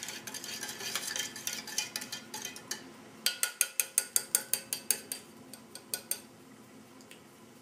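A spoon stirs drink mix in a metal canteen cup. First comes a light scraping and rattling against the inside of the cup. About three seconds in it turns into a fast run of sharp clinks, roughly six a second, which thins out and stops around six seconds in.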